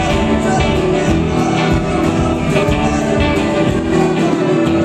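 A live band playing a song: amplified hollow-body electric guitar and singing over drums with a steady beat.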